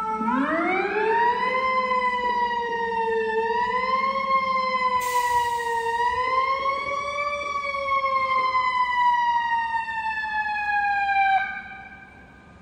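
Fire engine siren wailing. It sweeps up sharply at the start, then slowly rises and falls in pitch and cuts off suddenly near the end. A brief hiss comes about five seconds in.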